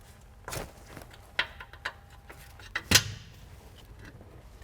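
Scattered metallic clicks and knocks of a wrench working the fitting between a brake hard line and the flex line, about six in all, the loudest about three seconds in.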